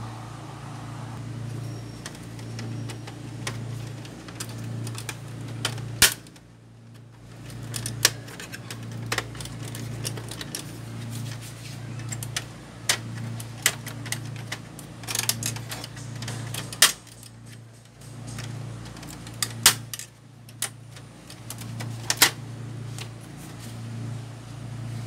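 Scattered sharp plastic clicks and knocks from the casing and parts of a Canon PIXMA MP287 inkjet printer being handled while its scanner unit is taken off, over a low hum that swells about once a second.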